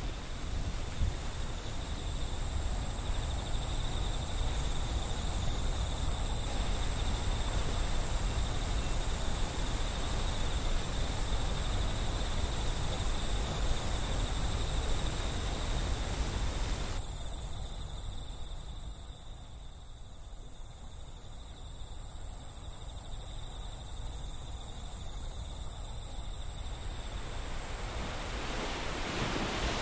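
Outdoor ambience of wind rumbling on the microphone and rustling through tall grass, with a thin, steady high insect chirring. The noise thins out and drops a little past halfway, then builds again near the end.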